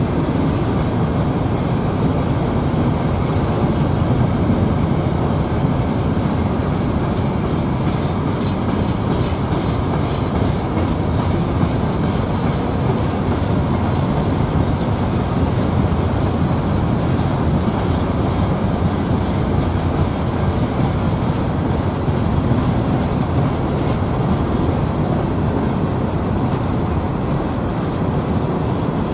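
Hopper cars of a long freight train rolling past at steady speed: a continuous rumble of steel wheels on the rails.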